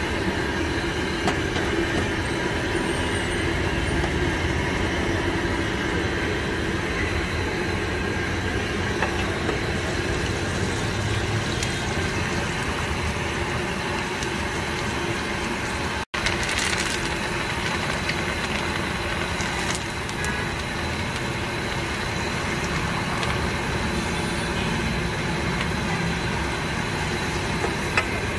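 Potato vadas and green chillies deep-frying in a large kadhai of hot oil: a steady sizzle and bubbling. The sound cuts out for an instant about halfway through.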